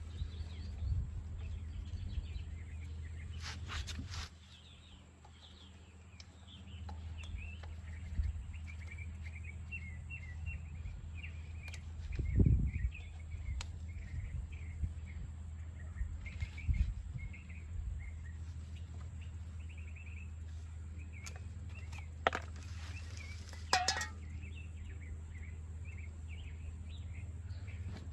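Birds chirping over a steady low outdoor hum, with a few scattered knocks, the loudest about twelve seconds in.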